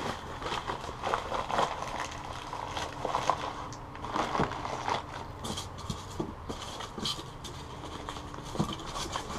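Newspaper wrapping crinkling and rustling as a packed part is unwrapped by hand, with scattered scrapes and light knocks of handling among the packing in a cardboard box.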